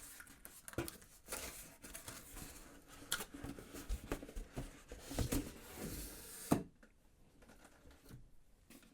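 A cardboard shoebox and its paper packaging being handled and opened: scattered light knocks, scrapes and rustling, which stop about six and a half seconds in.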